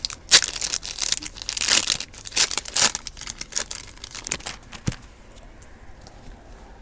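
Trading cards being shuffled and flicked through by hand: a quick run of sliding, flicking and rustling card noises for about five seconds, ending in a sharp click, then quiet.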